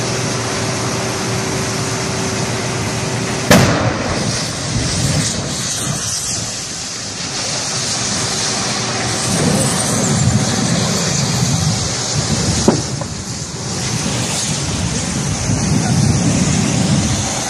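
Gas cylinders on a burning truck bursting: one loud, sharp bang about three and a half seconds in and a smaller one later, over a steady rushing noise of fire and venting gas. Another bang starts right at the end.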